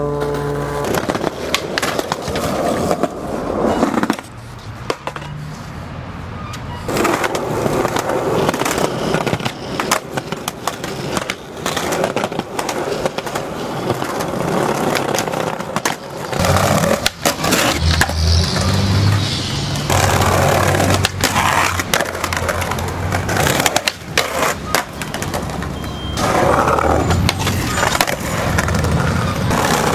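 Skateboard wheels rolling over concrete, broken by repeated sharp clacks of tail pops, board slaps and landings. A low hum runs underneath for several seconds past the middle.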